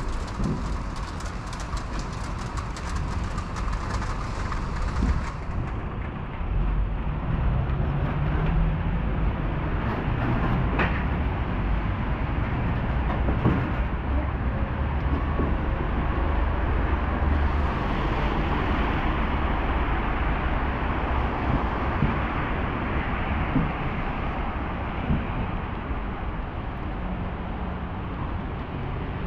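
City street traffic with a heavy vehicle rumbling steadily past, strongest from about six seconds in until past the middle. A fine crackle sits on top during the first five seconds.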